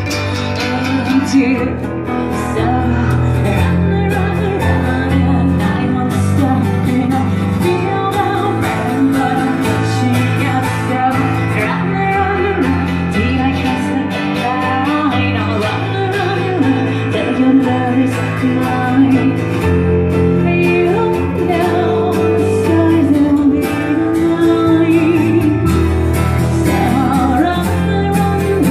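Live band playing a song: acoustic guitar with sustained bass notes and a singer's voice.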